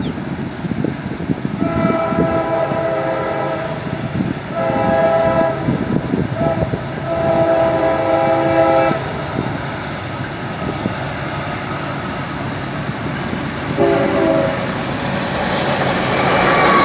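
Freight locomotive's multi-chime air horn sounding a series of blasts as the train approaches: a long blast, a shorter one, a brief toot and another long blast, roughly the long-long-short-long grade-crossing signal, then one more short blast near the end. Wind on the microphone underneath, and the locomotive's rumble grows louder in the last couple of seconds.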